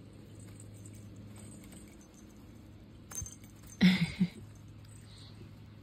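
Light metallic clinking and jingling from a metal link bracelet and rings as a hand moves among a Persian kitten's ribbon toys, with small clicks and rustles. There is a short vocal sound about four seconds in.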